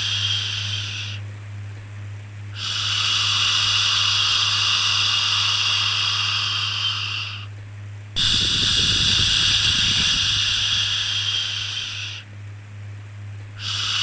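Long shushing 'shhh' sounds for soothing a baby, each held about four to five seconds with short breaks between them, over a steady low hum.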